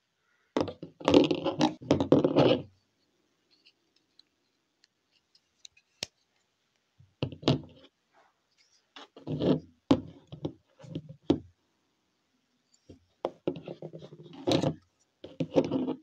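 Folding knives being picked up, set down and moved around on a tabletop: about four bursts of knocks, taps and scraping, separated by quiet gaps.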